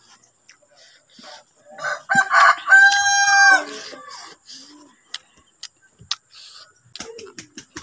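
A rooster crows once, about two seconds in: a single long call lasting about a second and a half. Short clicks of close-up chewing and mouth sounds follow.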